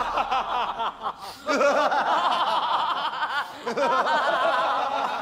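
A group of people laughing together, their laughter overlapping, with a short lull about a second in before it picks up again.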